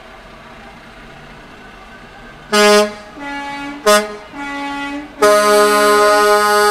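Multi-note air horn sounding, starting about two and a half seconds in: a short loud blast and a softer held note, then the same again, then a long loud blast of about two seconds.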